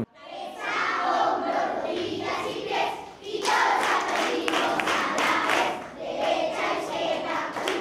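A large crowd chanting and shouting together, swelling and dipping in waves.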